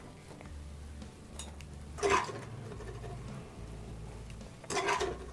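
Wire mesh skimmer scooping boiled soya chunks out of a pan of water, with two short clinks against the cookware, about two seconds in and near the end, over a low steady hum.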